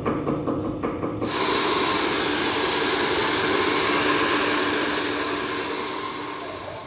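Hair dryer blowing: a steady hiss with a low hum under it, cutting in suddenly about a second in and slowly fading near the end. Music with a beat plays in the first second.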